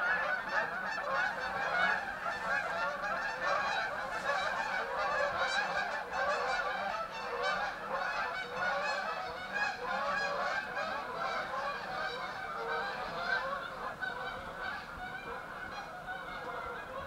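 A large flock of geese honking, many calls overlapping without pause, fading slightly near the end.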